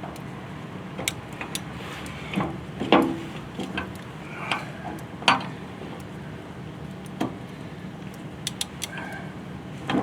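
Scattered metal clinks and knocks of a gland wrench working against a hydraulic bucket cylinder's gland, the loudest about three and five seconds in and again at the very end, over a steady low hum.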